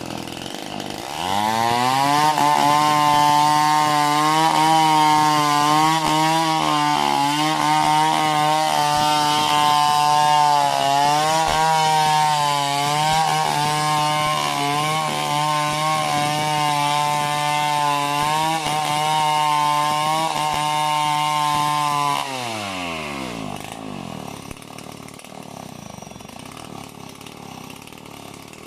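Chainsaw cutting into a coconut tree trunk. The engine revs up about a second and a half in and runs at full throttle for about twenty seconds, its pitch wavering slightly. Near the end it drops back to a quieter idle.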